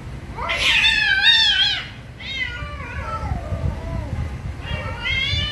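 Cats fighting, yowling: a loud wavering yowl about half a second in, a second yowl falling in pitch around two seconds, and another rising yowl near the end.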